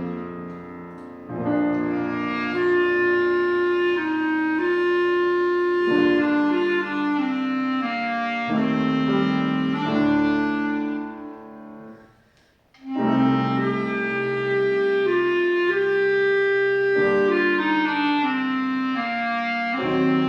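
Solo instrument playing a melody over piano accompaniment. A phrase ends about twelve seconds in, a brief pause follows, and the melody starts again.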